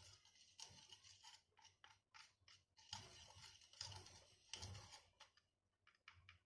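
A spoon stirring and scraping a thick paste of sitopaladi churna powder and honey in a small bowl, in faint irregular strokes that stop a little past five seconds in.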